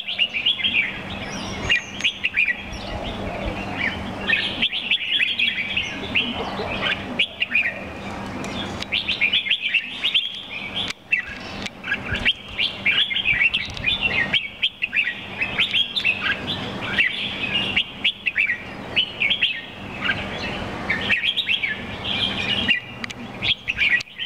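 Caged red-whiskered bulbul singing: quick, bright chirping phrases, repeated one after another with only short breaks, over a faint steady low hum.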